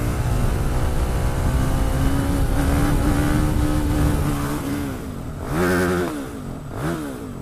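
50cc supermoto engine revved hard and held at high revs for a few seconds while the bike is pulled up into a wheelie. The revs drop about five seconds in, then rise and fall briefly twice more.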